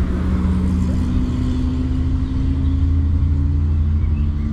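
A car engine idling, a steady low hum that holds an even pitch.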